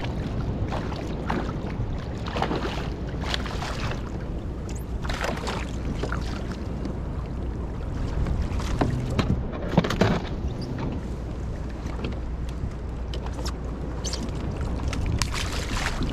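Choppy water sloshing and splashing around a small boat over a steady low rumble of wind on the microphone, with one sharper splash or knock about ten seconds in.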